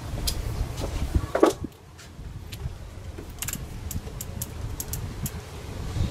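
Hand tools and metal parts clinking: a scattered run of short, light metallic clicks, with one stronger knock about a second and a half in, over a low steady rumble.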